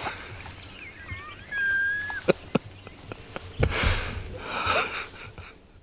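Songbirds whistling in the woods, thin gliding notes with one held note about two seconds in, followed by a few sharp clicks and short bursts of rustling handling noise.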